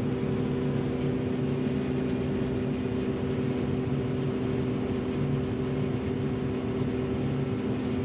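Steady drone of a John Deere combine heard from inside its cab: the machine's engine and fans running at a constant speed, with a few unchanging hum tones over a low rumble.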